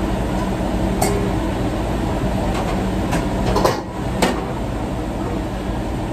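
Commercial kitchen noise: a steady, loud hum of equipment running, with a few sharp metallic clinks of steel trays and pans being handled, about a second in and again a little past the middle.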